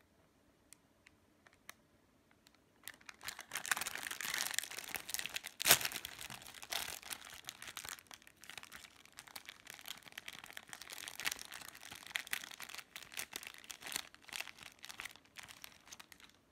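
Thin plastic bread wrapper crinkling as it is torn open and the bread is pulled out of it, with one sharp loud crack about a third of the way in. A few faint clicks come before the crinkling starts.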